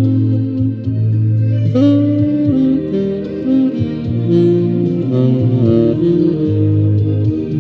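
Saxophone playing a melody in held notes over a backing accompaniment with a steady bass line.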